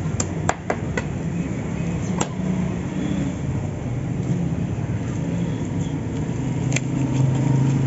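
Cleaver chopping through chicken onto a wooden block: a quick run of sharp knocks in the first second, another about two seconds in, and one near the end, over a steady low rumble of road traffic.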